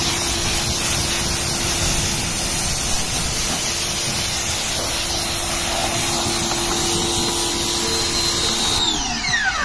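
Ryobi pressure washer running steadily, its motor and pump whining under the hiss of the jet from a short spray gun hitting the car and wet pavement. Near the end the whine falls in pitch as the machine winds down.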